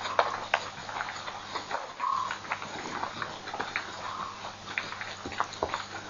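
Night animal sounds: a scatter of sharp, irregular clicks, with a short call about two seconds in and another about four seconds in, over a faint steady low hum.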